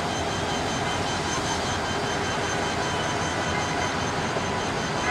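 Diesel locomotive engine running steadily as the locomotive moves along the tracks: an even rumble with a faint steady whine.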